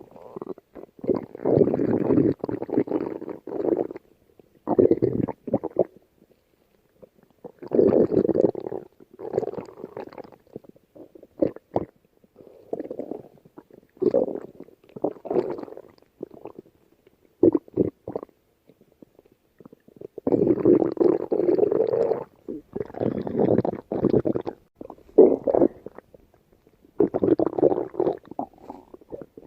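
A hungry person's stomach growling in a long, irregular run of growls. Some are brief and some last up to about two seconds, with short pauses between.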